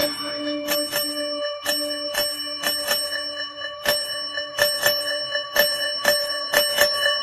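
Music intro of steady, bell-like ringing tones over a ticking pulse about twice a second, leading into a dance track.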